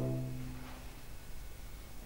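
A bowed cello note dies away over about half a second, then a pause with only faint room noise.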